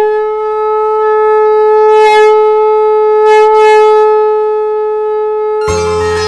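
Conch shell (shankh) blown in one long, steady note, as at the start of an aarti. Near the end the note gives way to instrumental devotional music with bass.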